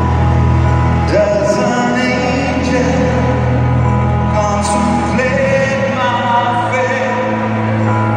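Music with a singer holding long notes and gliding between pitches over instrumental accompaniment.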